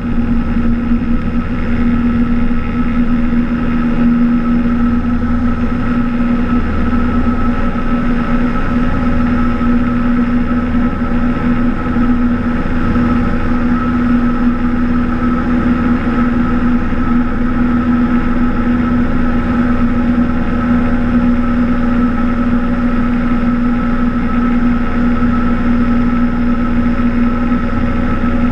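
Cessna 172's piston engine and propeller running at a steady drone, holding one even pitch.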